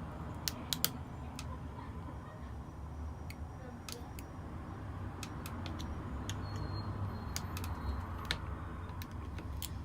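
Thin pry spatula working into the glued plastic seam of an Apple 87W USB-C power adapter case, giving scattered sharp clicks and ticks as it catches and slips, the loudest three close together about a second in, over a steady low hum. The case is so tightly glued that the spatula bends against it.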